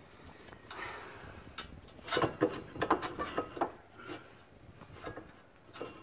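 New brake pads being fitted into a disc brake caliper bracket: metal backing plates and clips scraping briefly about a second in, then a run of sharp clicks and knocks as they seat.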